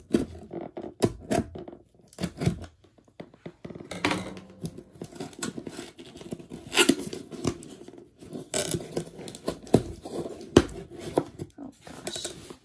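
Cardboard shipping box being opened by hand, with packing tape torn off. A run of short scrapes and knocks, with longer tearing sounds about four and eight seconds in.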